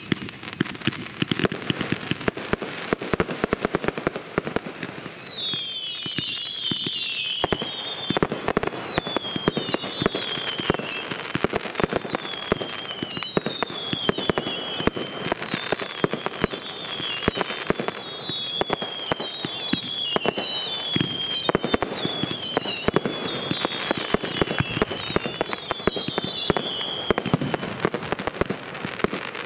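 Professional firework display firing continuously: a dense barrage of bangs and crackling. From about five seconds in, many overlapping high whistles fall in pitch one after another.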